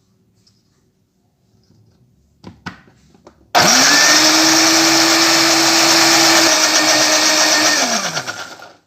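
Kitchen blender switched on about three and a half seconds in, its motor spinning up quickly and running loud and steady as it blends eggs, corn kernels and oil into batter, then winding down near the end. A couple of short clicks come just before it starts.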